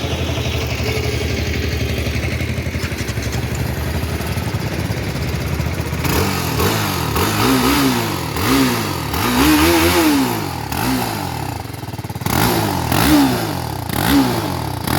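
TVS Apache RR310's single-cylinder engine idling steadily, then revved from about six seconds in with a series of short throttle blips, each rising and falling in pitch.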